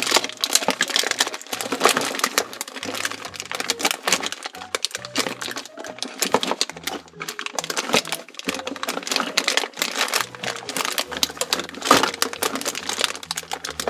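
Hands digging through a pile of toy surprise packages, with a continuous crinkling and rustling of wrappers. Faint background music with a slow bass line underneath.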